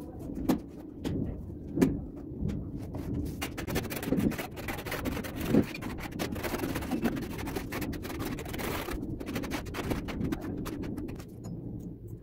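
Tile adhesive being dumped from a bucket onto the back of a large tile and worked with a trowel: a few sharp knocks, then several seconds of scraping.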